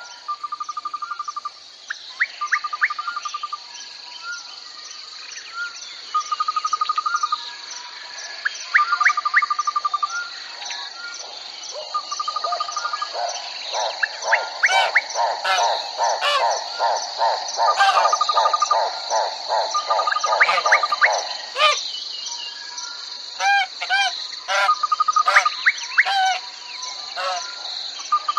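Crickets chirping in a steady high, pulsing trill, with a short lower trilled call repeating every couple of seconds and other chirps and quick rising calls over it; a faster, lower pulsing chorus joins about halfway through.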